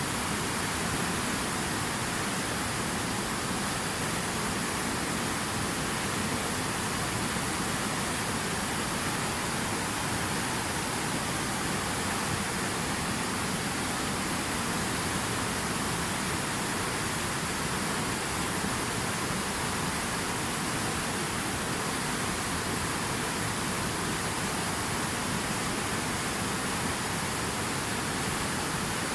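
Steady, unchanging rushing noise of running water.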